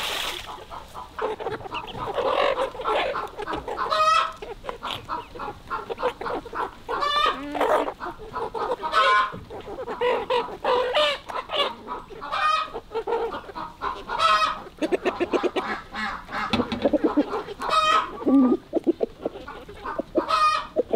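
A flock of chickens clucking around a feed trough, short calls every second or so, with a quick run of clucks about fifteen seconds in.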